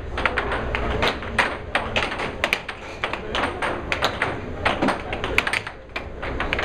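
Air hockey puck clacking off the players' mallets and the table's rails in fast play: a quick, irregular run of sharp clicks and knocks, several a second.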